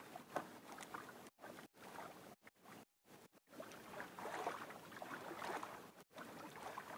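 Water sloshing and splashing around a small outrigger canoe as it is paddled across the sea, swelling about halfway through. The sound cuts out briefly several times.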